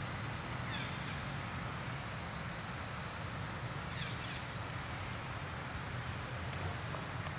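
Steady outdoor background noise with a low rumble. Two brief, high, falling chirps come through it, about a second in and about four seconds in.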